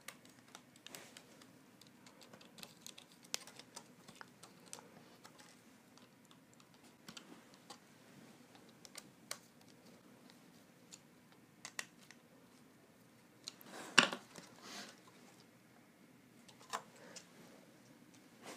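Scattered small clicks and taps of plastic parts and cables being handled on a Prusa i3 MK3 3D printer's extruder head, with one louder knock about fourteen seconds in.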